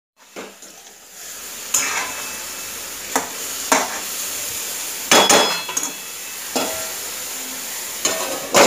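Chicken pieces sizzling in oil in a metal kadai while a steel spoon stirs them. The spoon scrapes and clinks against the pan several times at uneven intervals over a steady frying hiss.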